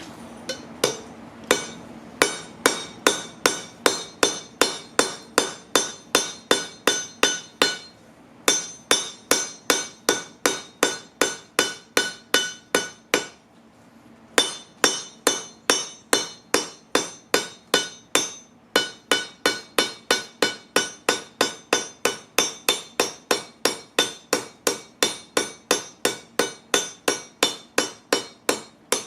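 Steady hammer blows on a railroad-track anvil, about three strikes a second, each with a metallic ring. The hammering pauses briefly twice.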